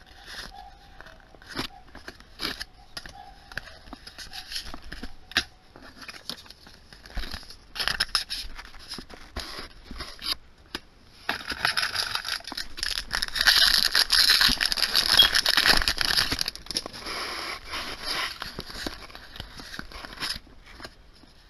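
Yu-Gi-Oh! trading cards being flipped through and slid against one another by hand: a run of quick slides and light taps, with a longer, louder stretch of dense rustling about halfway through.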